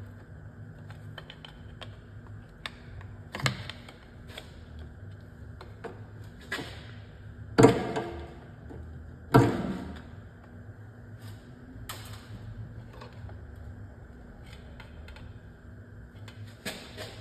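Hand tools working on metal under a car: scattered light clicks and taps, with a few sharper metallic clanks, the two loudest about two seconds apart near the middle, each ringing briefly.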